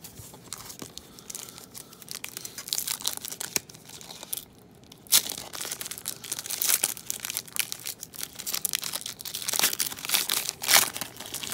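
Foil trading-card pack wrapper crinkled and torn open by hand, crackling on and off, loudest about five seconds in and again near the end.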